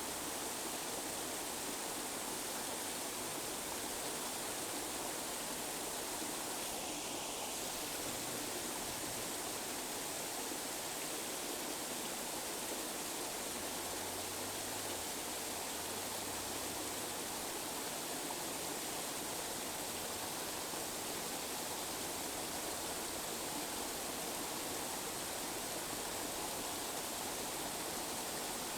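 Steady, unchanging rushing noise of the kind played for tinnitus masking, spread evenly from the mids up to the highs with little deep bass.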